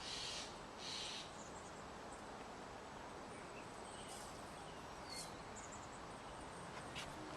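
Faint outdoor ambience: two short hissing rasps in the first second or so, then a steady low background with a few faint bird chirps and a single sharp click near the end.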